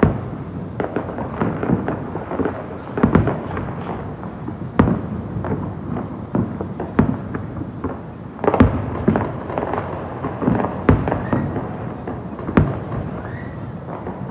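Fireworks going off: a string of irregular sharp bangs with crackling between them, and a short rising whistle near the end.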